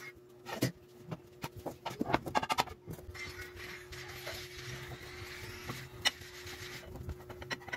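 Hands handling chapati dough on a floured wooden board: a few wooden knocks and taps in the first three seconds, then a steady dry rubbing as the dough is kneaded on the board. A faint steady hum runs underneath.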